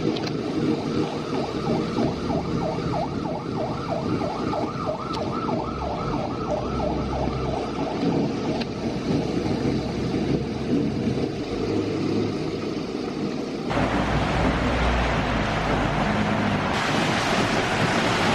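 Heavy monsoon rain and gusting wind, a dense steady roar of downpour. For the first half a fast warbling tone repeats about three times a second over the rain, then fades out; about fourteen seconds in the sound turns abruptly into a louder, even hiss.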